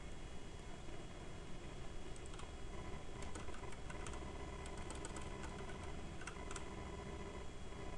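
Typing on a computer keyboard: a run of key clicks from about two seconds in until a little after six seconds, over a faint steady background hum.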